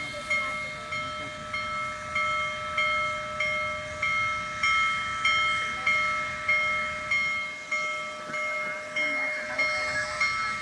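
Railway warning bell ringing in a steady rhythm, about one and a half strikes a second, each strike ringing on as it fades.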